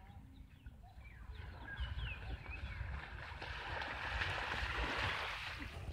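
Water splashing and swishing as a triangular hand push net is shoved through shallow floodwater over grass, building from about halfway through and easing just before the end.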